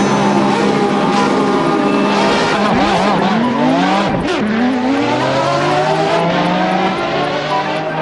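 Car engines revving, several pitches sliding up and down and crossing, with sharp dips about three and four seconds in, then a slow rise; tyre squeal mixed in.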